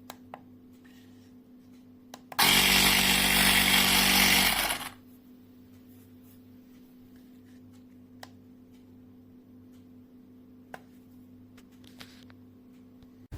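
Portable electric tyre inflator's compressor motor running with a loud buzz for about two and a half seconds, starting about two seconds in and then stopping. A few faint clicks are heard before and after it.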